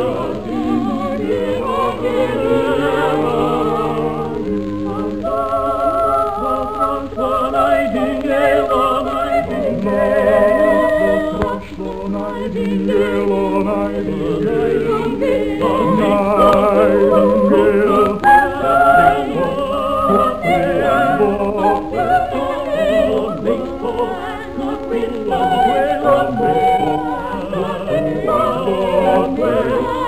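Soprano singing a madrigal, with other musical parts sounding beneath her voice, on an old recording with a dull top end.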